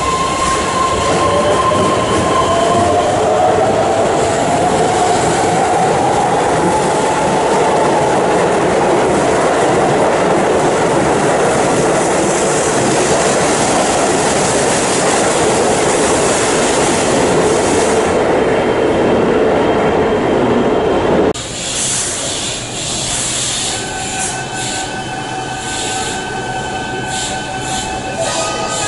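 Keihan electric train pulling out of the platform: the motor whine rises in pitch as it accelerates, followed by loud wheel and running noise. About 21 seconds in the sound cuts off abruptly to a quieter background with a few steady tones.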